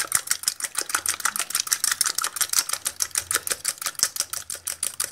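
Small metal coil whisk beating egg white in a ceramic bowl: quick, even clicks of the wire against the bowl, about eight a second.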